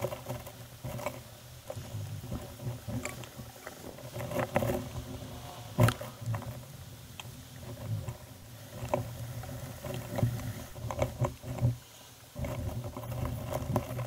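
A squirrel moving about inside a wooden nest box, scratching and rustling dry leaves and bedding, with irregular knocks against the wood; one sharp knock about six seconds in.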